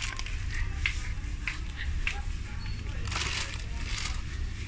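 Plastic snack packets crinkling and clicking as they are handled, with a longer rustle about three seconds in, over a steady low hum.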